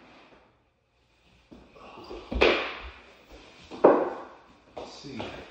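Two sharp thumps about a second and a half apart, each ringing briefly, followed by a couple of softer knocks near the end.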